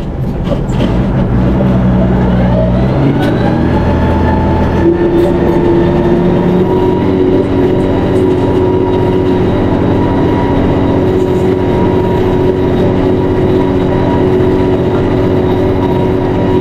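Valmet 1280 tractor's diesel engine revving up, its pitch climbing over the first few seconds, then running steady and loud at high revs.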